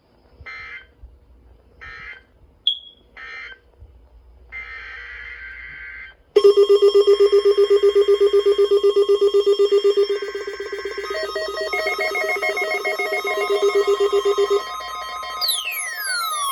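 Emergency Alert System weather-radio test tones. First come three short buzzy bursts of SAME digital data and a longer data burst. About six seconds in, a loud pulsing alarm tone starts and runs for about eight seconds, shifting pitch partway through, and a falling sweep follows near the end.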